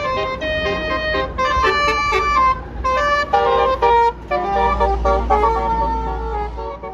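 Basuri telolet bus horn playing a loud tune of several notes sounding together, changing pitch in quick steps. About four seconds in, a low engine rumble swells under it.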